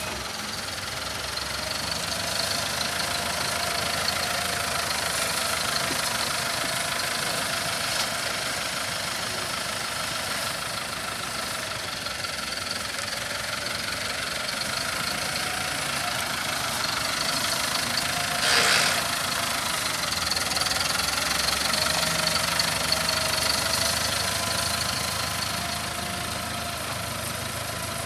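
Ford New Holland 6610 tractor's four-cylinder diesel engine running steadily as the tractor drives around, its pitch drifting a little up and down. A brief loud hiss comes about two-thirds of the way through.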